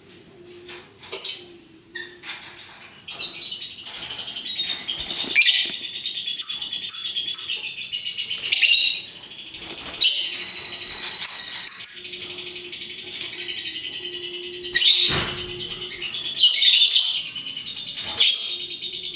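Lovebird singing its long, unbroken chattering 'ngekek' song, which sets in a few seconds in after scattered chirps, with loud sharp chirps breaking through the run.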